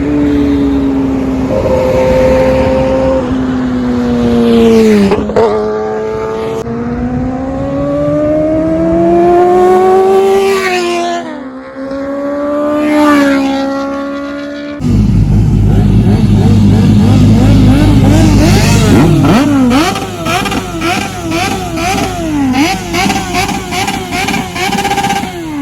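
Kawasaki ZX-10R inline-four engine through a Racefit aftermarket exhaust, revving up and dropping in pitch several times as it accelerates and shifts. About fifteen seconds in the sound changes abruptly to a louder run of quick throttle blips, the pitch jumping up and falling back again and again.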